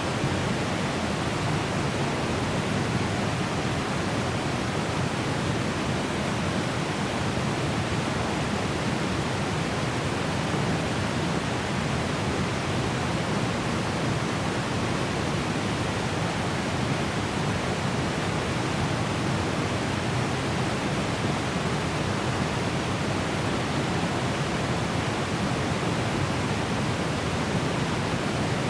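Small, strong waterfalls heard from a medium distance: a steady, unbroken rush of falling water.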